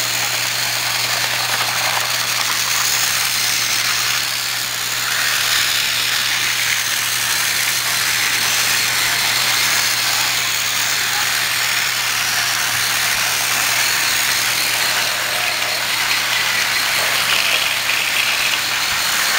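Several battery-operated TrackMaster toy trains running on plastic track: a steady whirring and rattling of their small electric motors and wheels, with a low steady hum underneath.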